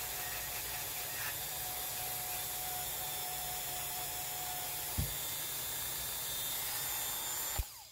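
Dremel rotary tool running steadily with a small felt polishing wheel, buffing the head of a golf iron with polishing compound: a steady hiss with a thin whine. A single click comes about five seconds in, and the sound cuts off just before the end.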